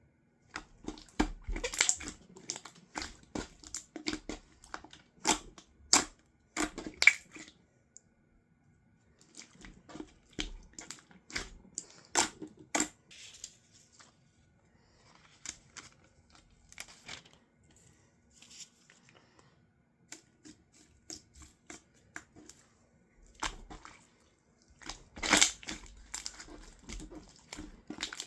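Slime with gold foil in it being squeezed and pressed, the foil giving crisp crackles and crinkles in clusters with short pauses between them; the loudest run comes near the end.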